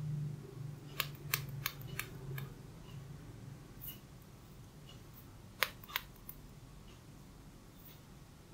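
Hair cracking: sharp snaps of small locks of hair pulled taut and rubbed between the fingers during a head massage. Four come in quick succession about a second in, and two more near six seconds.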